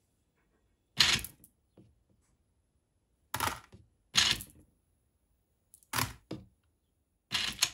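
3D-printed sprocket screw dispenser with its geared stepper motor, turning in short bursts to drop sets of four steel screws, which clatter out. Six or so brief clattering bursts come a second or two apart.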